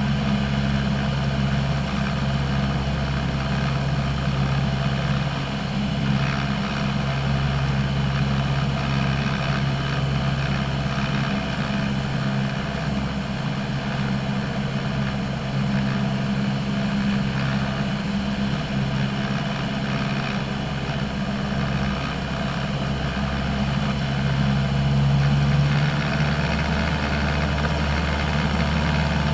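Single-engine light aircraft's piston engine and propeller droning steadily in cruise, heard inside the cabin. There is a deep, even hum with a slight swell in loudness near the end.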